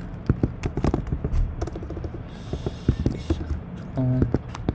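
Typing on a MacBook Pro's shallow-travel laptop keyboard: an irregular run of key clicks, picked up loud. The loudness seems to come from the laptop's own built-in microphone doing the recording. A short hummed sound comes about four seconds in.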